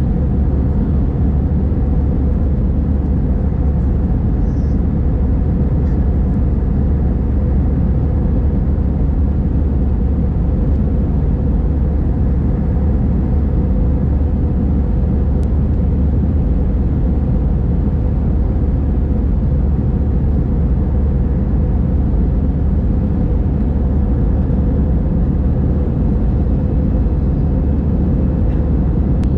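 Steady low rumble of jet engines and rushing air heard inside the passenger cabin of an Airbus A321, climbing shortly after takeoff. The noise holds at one even level with no change.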